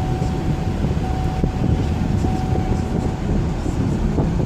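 Wind buffeting a phone's microphone outdoors: a loud, steady low rumble, with a faint thin tone through the first three seconds.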